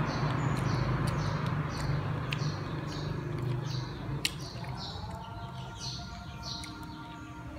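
Small birds chirping, short high chirps repeating about twice a second, over a steady low hum. There are a couple of sharp clicks in the middle.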